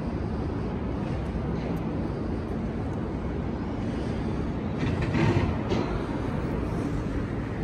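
Steady low rumble of city street traffic, with a louder passing rush about five seconds in.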